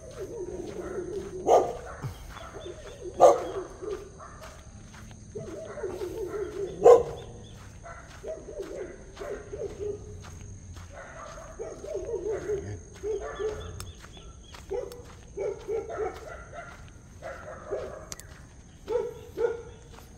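Dogs barking again and again, the loudest barks about a second and a half, three and seven seconds in, over a steady high-pitched whine.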